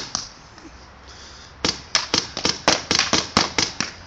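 A rapid string of sharp pops, about four a second, that starts a little over a second and a half in after a quieter stretch and runs on to the end.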